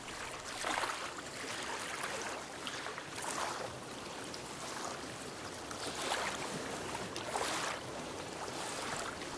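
Small waves lapping and splashing at the water's surface, a soft wash that swells every second or two.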